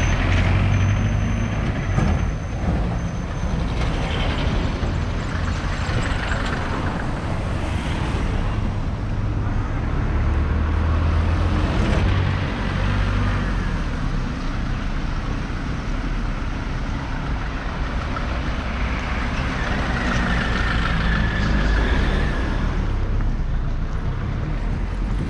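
Busy street traffic: the engines of passing vehicles, a steady low rumble with road noise.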